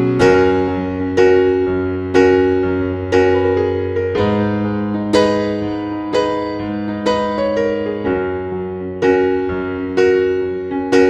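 Slow, gentle piano music: a note or chord is struck about once a second and left to ring, over held low bass notes.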